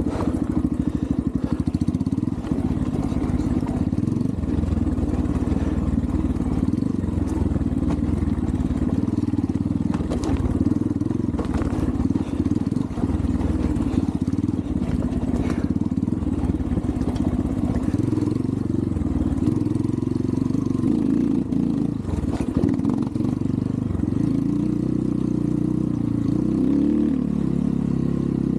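Single-cylinder four-stroke engine of a 250cc Xpro Templar X dirt bike running steadily as it is ridden along a trail. There are a few sharp knocks around the middle of the stretch.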